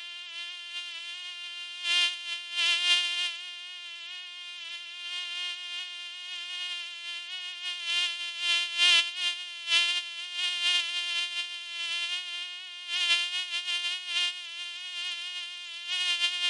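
Mosquito whining in flight: a thin, steady buzzing tone with many overtones that wavers slightly in pitch, swelling louder and fading again many times.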